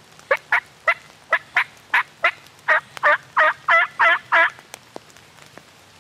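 Wild turkey yelping: a run of about thirteen short yelps, the later ones longer and raspier, stopping about four and a half seconds in.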